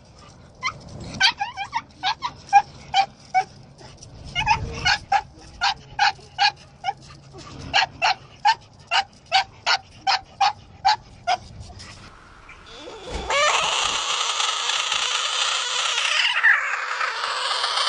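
Creature sound effect: a run of short, high yelping barks, about two a second with a brief pause, then a long, harsh, raspy cry that lasts several seconds.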